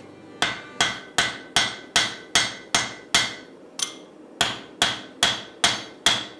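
Hand hammer blows on a red-hot axe billet with a steel drift through its eye, on the anvil, while drifting the eye to shape and enlarge it. The strikes are evenly paced, about two and a half a second, each with a short metallic ring, with a brief pause and one lighter tap a little after three seconds in.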